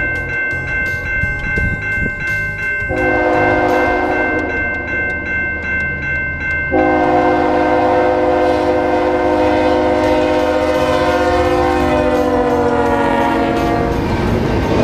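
Level-crossing warning bell ringing while an approaching CN locomotive sounds its air horn: a blast about three seconds in, then a long held blast from about seven seconds. The pitch of the held blast sags slightly as the locomotive reaches the crossing near the end.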